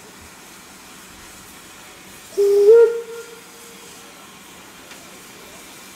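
Steam locomotive whistle: one short blast about two and a half seconds in, stepping up slightly in pitch and then dying away, over a steady background hiss.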